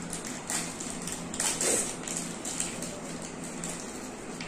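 Paper wrappers of ice cream cones crinkling and tearing as they are peeled off by hand, in short irregular crackles.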